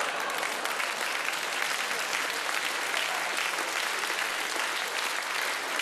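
Theatre audience applauding: steady clapping from a large seated crowd, even in level throughout.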